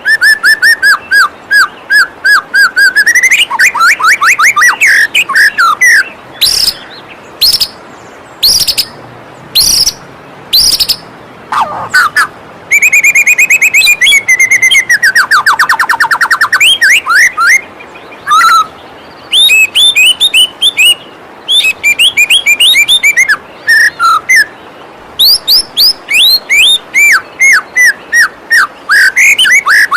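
White-rumped shama singing in fast runs of rapidly repeated notes and trills, phrase after phrase with short breaks, over the steady rush of a flowing waterfall.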